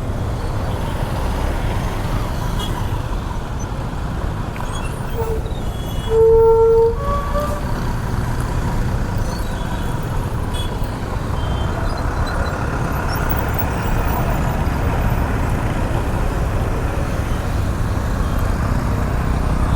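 Steady road and wind rumble from riding a motorcycle through traffic. A vehicle horn honks once, briefly, about six seconds in.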